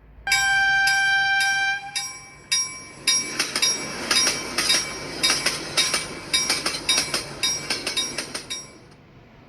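A train horn sounds one steady note for under two seconds. It is followed by a quick series of ringing, bell-like metallic strikes, several a second, that fade away near the end.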